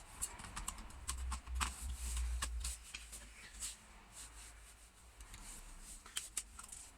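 Irregular light clicks and taps from laptop parts and screws being handled and fitted during reassembly, with a low rumble from about one to nearly three seconds in.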